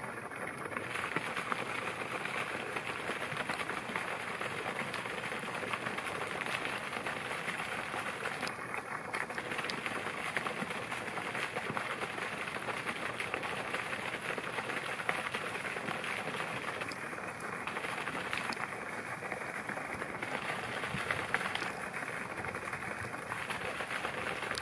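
Steady outdoor background noise with dense, faint crackling and no distinct event.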